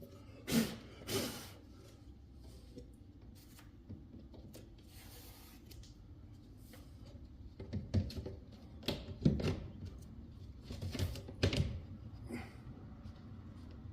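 Scattered knocks, clunks and scrapes of hand work on an RV vent window and its frame as it is fitted: two sharp knocks about half a second apart near the start, then a run of knocks and scraping in the second half.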